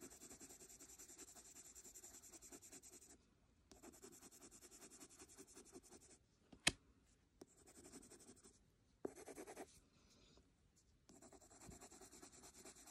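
Wax-based Prismacolor coloured pencil scribbling in rapid short strokes on smooth paper, blending the coloured layers; faint, stopping briefly a few times, with one sharp tick about six and a half seconds in.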